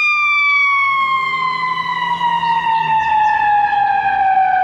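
Ambulance siren wailing as the ambulance passes, its tone falling slowly and steadily in pitch.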